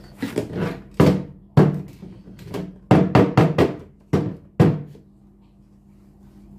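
Hard plastic Thomas the Tank Engine toy being handled and lifted off a wooden table: about a dozen sharp plastic knocks and clunks over the first five seconds.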